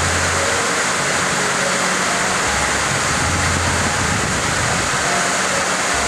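Waterfall cascading down stepped rock: a steady, loud rush of falling water, with faint low notes coming and going underneath.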